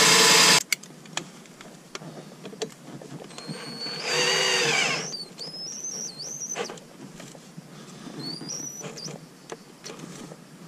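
Cordless drill driving a screw extractor into a stripped steering-wheel bolt: it runs at full speed and stops about half a second in, then runs again in a burst about four seconds in, pitch rising and falling, with fainter short motor whines after it as the trigger is eased. The bolt is seized and will not come out.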